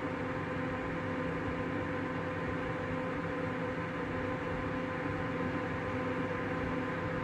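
Graphics-card cooling fans spinning in a running PC: a steady whir with a few steady humming tones. The newly fitted replacement ball-bearing fan spins very quietly.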